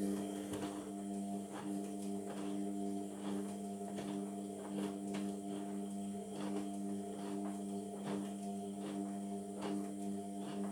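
Indesit washing machine running mid-wash: a steady humming with a soft click every half second or so, which starts at once and cuts off abruptly after about eleven seconds.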